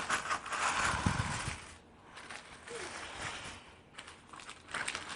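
Handling noise from unpacking a box of hair products: rustling and crinkling of the packaging, loudest in the first two seconds, then lighter clicks and knocks.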